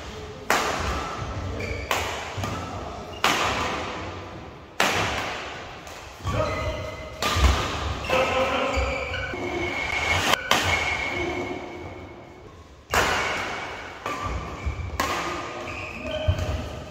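Badminton rackets striking a shuttlecock in a rally, a sharp smack every second or two echoing through a large hall, with players' footwork thudding and squeaking on the court mats between shots.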